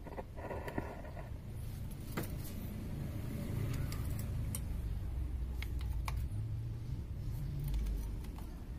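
Low rumble of a motor vehicle going by, building from about three seconds in and easing off near the end. A few sharp metallic clicks from a small wrench on the motorcycle's carburettor sound over it.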